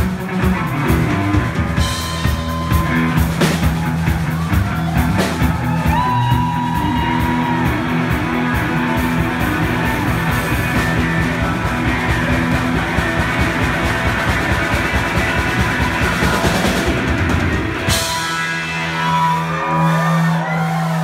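Live rock from a drum kit and electric guitar playing loud and dense. About three seconds before the end the drums stop and a low held note rings on.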